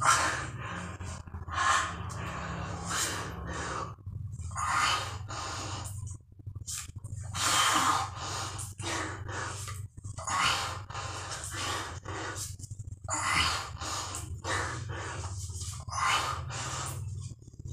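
A man's heavy, laboured breathing as he strains through push-ups near the end of a 200-rep set: forceful exhales and gasps every second or so, with a steady low hum underneath.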